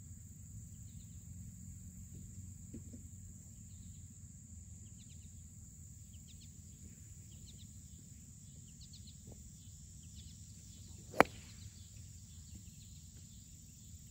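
A single sharp crack of a golf iron striking the ball about eleven seconds in: a bladed shot, caught thin on the club's leading edge. Faint chirping in the background.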